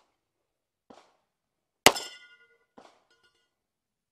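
A single pistol shot about two seconds in, followed by the ringing clang of a steel target being hit. Two much fainter sharp pops come about a second before and a second after it.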